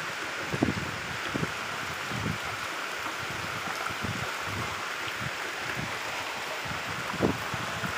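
Steady rain falling, an even hiss, with a few sharper taps of drops landing close by.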